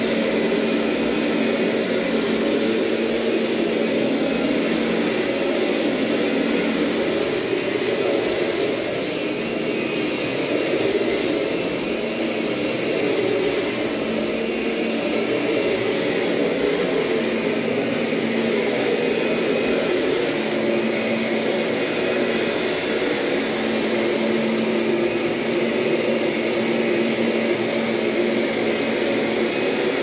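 Kirby upright vacuum running in its carpet shampoo configuration, its motor giving a steady, unbroken whine with a constant low hum as the shampoo head is worked back and forth over carpet to scrub it.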